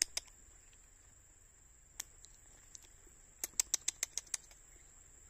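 Steady high-pitched insect drone, broken by runs of sharp clicks: a few at the very start, a single one about two seconds in, and a quick series of about seven within a second around three and a half seconds in.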